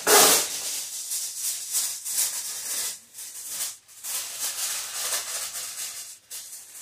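Aluminium foil crinkling and rustling in irregular strokes as it is pressed and crimped tightly around a pan, loudest right at the start.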